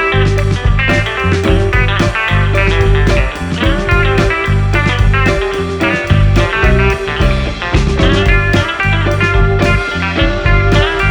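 Background music: guitar-led instrumental with a steady beat and bass.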